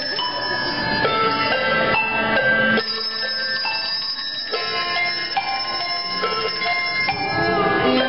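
Handbells rung by several players, playing a melody: many bright ringing notes struck one after another and sustaining over each other.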